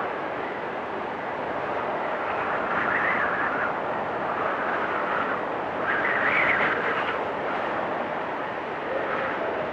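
Strong winter wind blowing steadily, with gusts that swell and rise and fall in pitch about three seconds and again about six seconds in.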